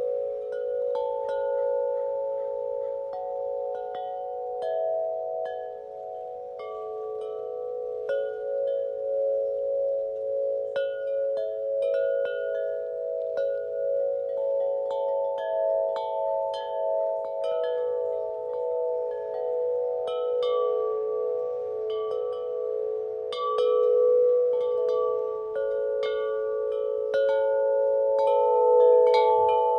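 Wind chimes struck irregularly by the wind, several tones ringing on and overlapping so that they beat against one another.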